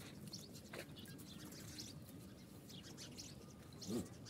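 Small birds chirping faintly with short high calls, and a brief low farm-animal call about four seconds in.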